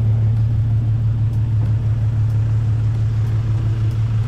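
A vehicle engine running steadily with an even low hum, not revving.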